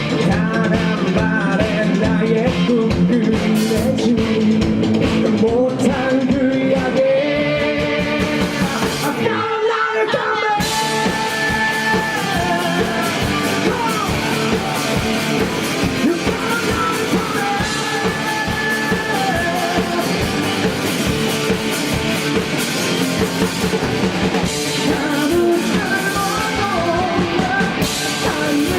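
Live rock band playing with drums, guitars and bass, and a singer's voice over them. About ten seconds in the low end drops out for a moment, then the full band comes back in.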